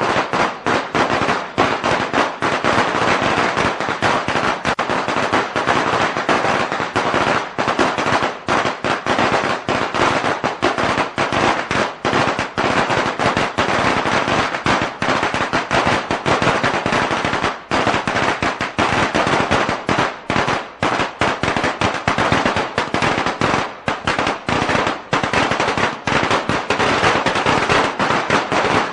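A long string of Chinese firecrackers going off in a dense, unbroken rattle of rapid bangs.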